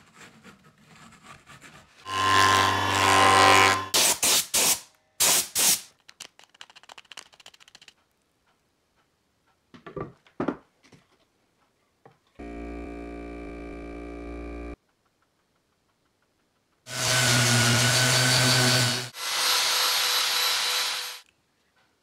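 Workshop power tools running in a series of separate short stretches, each a few seconds long with a steady motor hum, with shorter bursts and knocks between them and quiet gaps.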